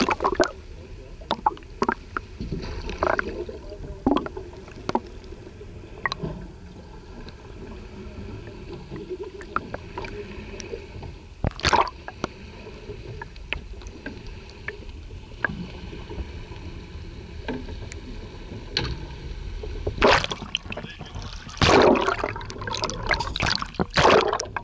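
Muffled underwater sound picked up through an action camera's waterproof housing held in the sea: a steady low rumble with scattered clicks and knocks, a loud splash about twelve seconds in, and a run of loud splashing and sloshing near the end.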